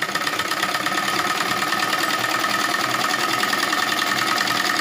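Domestic sewing machine running steadily, stitching a seam through light cotton fabric with a fast, even rattle of the needle.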